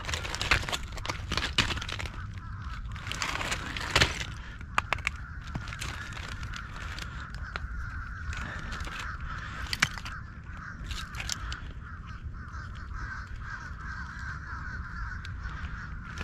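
Oyster shells and rocks clicking and clattering as a hand turns over clumps on an exposed oyster bar. The sharp clicks come at irregular moments, loudest about four seconds in and again near ten seconds, over a low rumble of wind on the microphone and a steady rough hiss.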